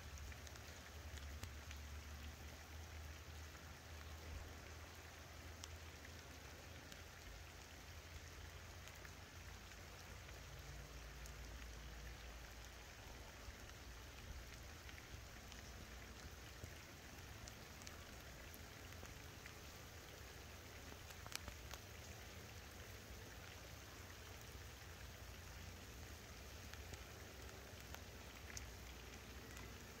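Faint, steady rain falling, with scattered single drops ticking close by.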